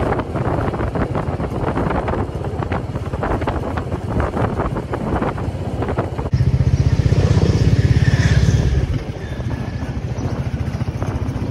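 Royal Enfield Meteor 350's single-cylinder engine running as the motorcycle rides along, heard from on the bike. About six seconds in the sound jumps abruptly louder for about three seconds, then settles back.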